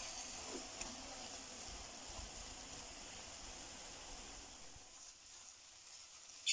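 Faint sizzling of grated carrot halwa frying in ghee in a kadhai, dying down a little toward the end, with a light tick of the wooden spoon about a second in.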